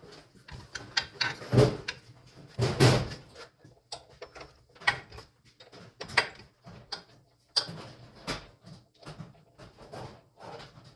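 Irregular knocks, clicks and clunks of parts being handled while a blade is fitted to a chop saw, with two louder knocks in the first few seconds.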